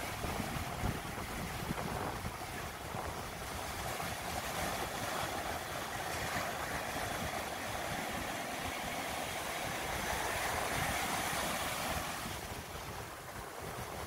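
Ocean surf washing up a sandy beach: small waves breaking and foaming in a steady wash, with wind buffeting the microphone. It swells a little around ten seconds in and eases near the end.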